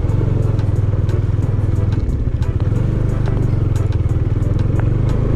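Motorcycle engine running steadily at low speed, heard from on the bike, with scattered sharp clicks and clatter over it.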